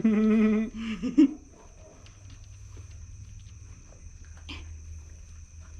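A goat bleats once at the start, a loud wavering call about two-thirds of a second long, followed by a shorter, rougher call and a sharp knock about a second in.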